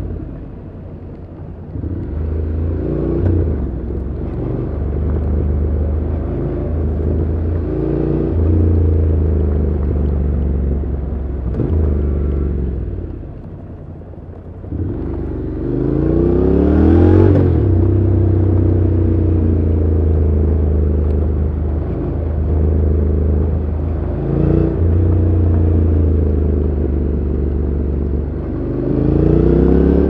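Honda NC750X parallel-twin engine through its stock exhaust, pulling through the gears. The note rises and drops at each gear change several times. It goes quieter for a moment about thirteen seconds in, then climbs steeply in revs to an upshift a few seconds later.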